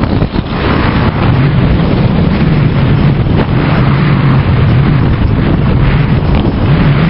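Loud, steady wind buffeting the microphone of a skier going downhill, mixed with the hiss and scrape of skis on packed snow.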